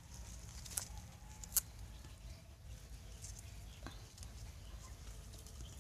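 Quiet handling of papayas hanging on the tree, with two sharp clicks about a second and a second and a half in over a steady low rumble.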